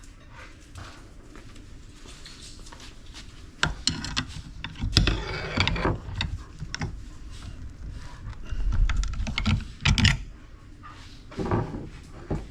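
Hand tools working on a water pump casting held in a vise: irregular metal clicks, knocks and scraping, starting a few seconds in, as a bolt and rubber stopper lodged in its coolant passage are worked loose.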